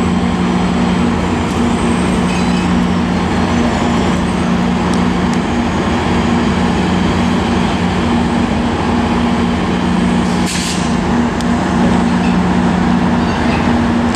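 Diesel locomotives idling, a steady loud hum with two constant low tones: Amtrak EMD F59PHI units standing at the platform. A short hiss of air cuts in about ten seconds in.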